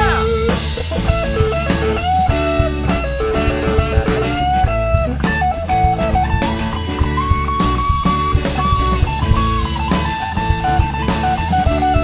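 Rock band playing an instrumental passage: a lead guitar line of held and upward-bent notes over bass and a steadily beating drum kit, with no vocals.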